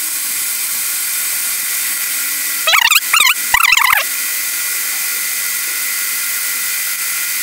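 Drill running steadily with an arrowhead (spear-point) tile bit grinding into marble-pattern tile. About three seconds in the bit gives three short, wavering high-pitched squeals, a change in sound that suggests it is close to breaking through the tile.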